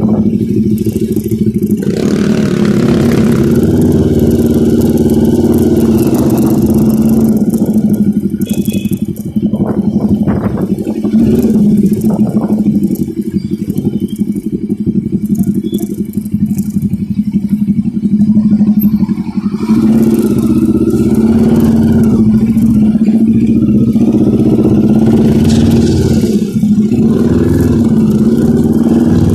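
Motorcycle engine running as it is ridden. Its note eases for several seconds midway and picks up again about twenty seconds in.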